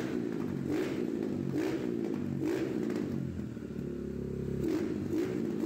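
Small drag-race-tuned street motorcycle engine running, its pitch rising in short repeated blips about once a second. It settles to a steadier, slightly quieter note for about a second near the middle, then blips again.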